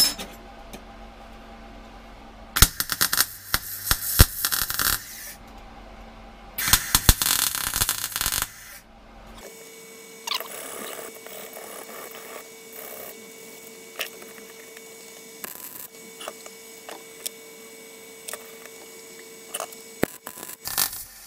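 Small steel offcuts scraped and clattered on a steel welding bench plate in two noisy stretches. After that comes a quieter spell with a steady hum and odd light ticks, and a short crackling burst of MIG welding right at the end.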